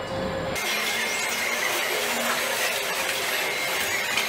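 Steady machine noise on a car-assembly line: a hiss with a faint high whine, changing abruptly about half a second in as the low rumble drops away.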